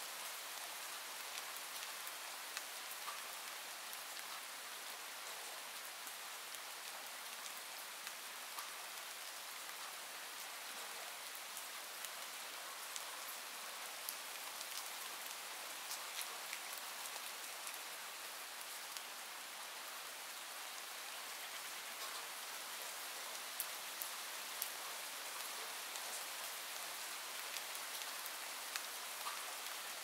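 Steady rain: an even hiss with many separate drops ticking through it.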